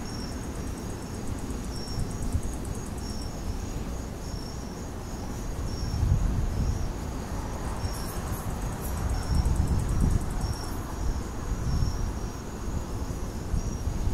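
Crickets chirping in short, repeated pulses over a steady high insect trill, with gusts of wind rumbling on the microphone, loudest about six and ten seconds in.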